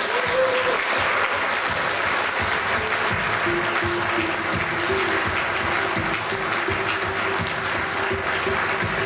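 Audience applauding steadily in a hall, with the film's soundtrack music of slow held notes playing underneath.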